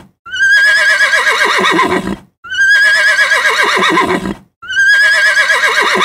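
Horse whinny sound effect: the same recorded neigh played three times in a row, each about two seconds long, starting high with a quaver and sliding down in pitch.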